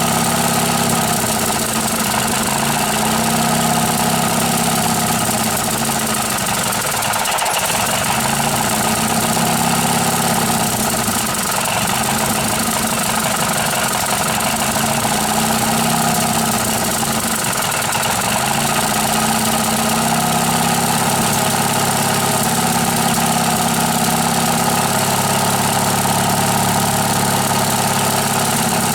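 Briggs & Stratton 18 hp horizontally opposed twin-cylinder four-stroke with cast iron bores, running steadily on test. The carburettor still needs cleaning and adjustment, but it runs well.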